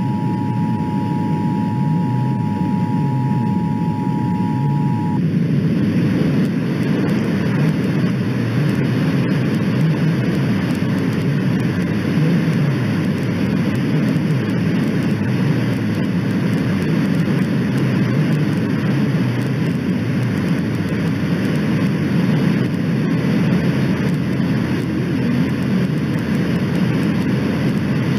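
Emergency Alert System attention signal: two steady tones sounding together, which cut off about five seconds in. After that there is a loud, steady rushing noise with no voice in it.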